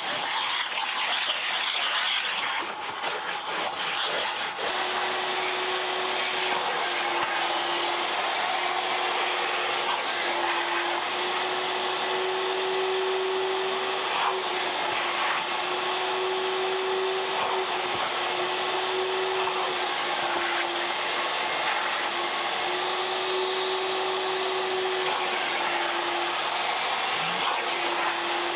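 Vacuum cleaner running steadily, its hum shifting slightly up and down in pitch every few seconds. It comes in about five seconds in, after a stretch of rubbing with scattered clicks.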